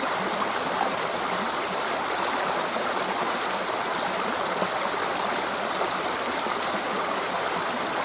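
Shallow stream flowing over rocks and a small drop between stones: steady running water.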